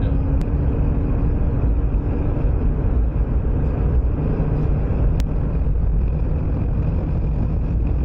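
Steady in-cabin road and engine noise of a Jeep driving at highway speed with a travel trailer in tow, dominated by a low rumble. A faint hum fades out about two seconds in, and there are two light clicks.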